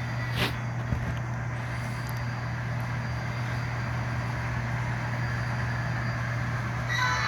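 Diesel engine sound from an HO scale model locomotive's speaker: a steady low idle hum, with a couple of sharp clicks in the first second. Near the end a steady pitched tone of several notes starts.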